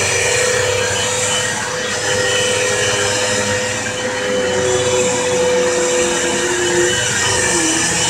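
Vacuum cleaner running steadily: a motor whine over a rush of air, with a lower note that wavers slightly.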